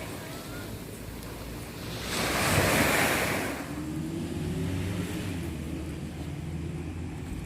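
Wind and ocean surf, with a louder rush about two seconds in. From about four seconds in, a low steady motor hum joins in.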